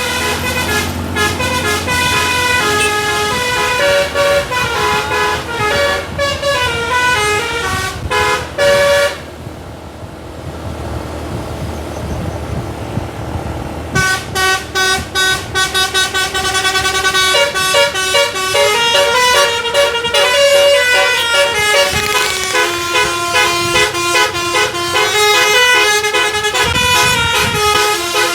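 Tour bus's telolet basuri musical air horn, several horn trumpets playing a fast tune of quickly changing notes. It breaks off about nine seconds in, leaving the bus engine running low, and starts playing again about five seconds later.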